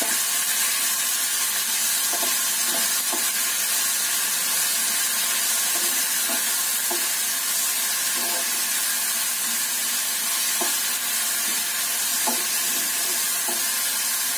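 Onion, ginger, chilli and garlic sizzling and crackling in hot oil in a frying pan, stirred steadily with a spatula whose scrapes and taps on the pan come through as faint ticks every second or so.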